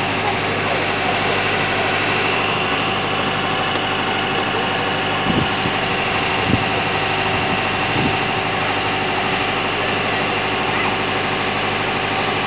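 A steady engine-like hum, running idle without change, with a few soft low thumps about five, six and a half and eight seconds in.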